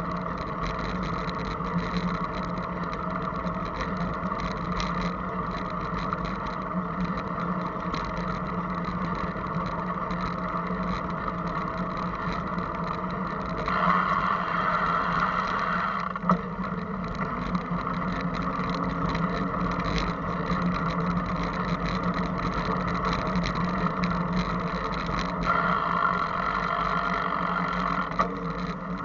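Steady rumbling noise with constant rattling and a faint steady hum, picked up by a camera moving along a path. The noise swells briefly about halfway through and again near the end, and there is one sharp click just after the halfway swell.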